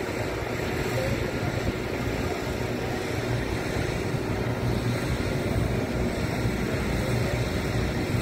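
Steady outdoor rushing noise with wind buffeting the microphone in uneven low gusts.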